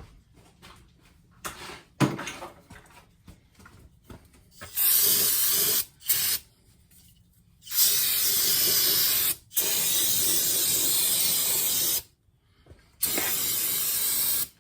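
Aerosol brake cleaner spraying in a series of hissing bursts, about five, the longer ones around two seconds each, after a few seconds of quiet handling clicks. It is being sprayed to wash spilled compressor oil off the machine.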